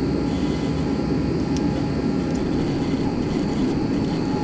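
Steady roar of diesel-fired torpedo heaters running, with two or three faint clicks partway through.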